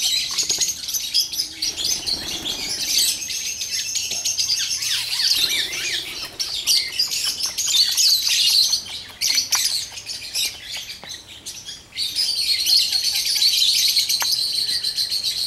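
A flock of caged parakeets chattering with a dense, continuous stream of quick high-pitched chirps, thinning for a couple of seconds past the middle before filling in again.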